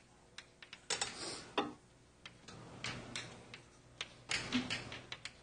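Writing on a lecture-hall board: irregular sharp taps and short scratchy strokes as letters are written.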